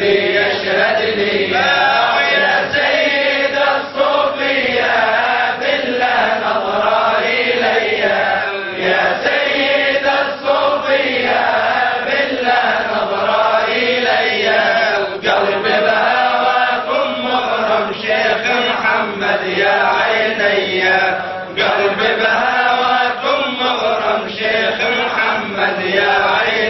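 A man's voice chanting a Sufi kaside (devotional ode) unaccompanied, in long melodic phrases whose pitch bends up and down, with a few brief breaks.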